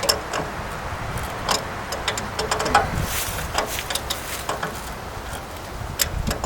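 Scattered light clicks and taps of small parts being handled and fitted by hand, with a brief hiss about three seconds in, over a low steady rumble.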